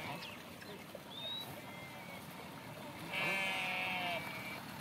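A sheep bleating in a flock: one long bleat about three seconds in.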